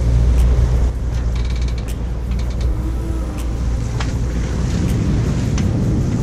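Steady low rumble of a sailboat's inboard engine motoring, with wind noise and a few short creaks and clicks from the boat's fittings.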